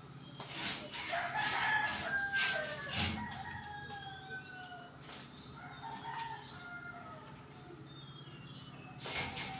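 A rooster crowing: a long drawn-out call that slides down in pitch from about a second and a half in, with a shorter call around six seconds. Under the first part runs a quick series of short scratchy strokes.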